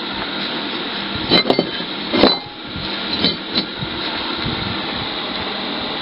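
Small steel belt buckle being handled and turned over on a wooden bench: a few light knocks and clinks of metal on wood in the first few seconds, over a steady background hiss.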